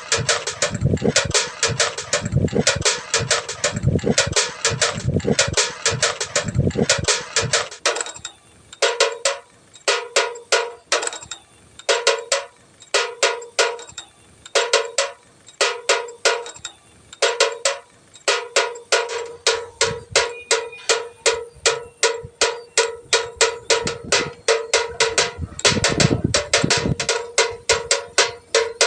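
A bird-scaring windmill turning in the wind, its clappers striking a ringing target several times a second with a cowbell-like clank. The strikes thin out and lighten about eight seconds in, then grow heavier again in the second half.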